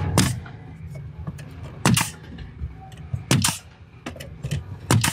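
A nail gun firing nails through trim into the wall. It fires five sharp shots roughly every second and a half, two of them close together near the middle.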